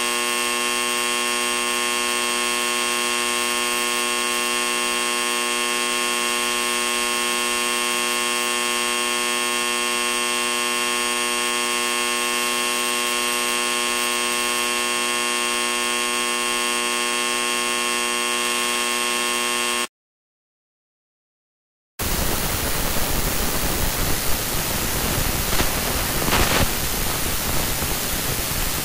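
A steady electronic drone of many held tones at once, unchanging, which cuts off suddenly about twenty seconds in; after two seconds of silence a steady static hiss takes over.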